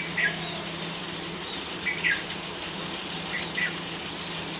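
Three short bird chirps, about a second and a half apart, over a steady background drone of insects.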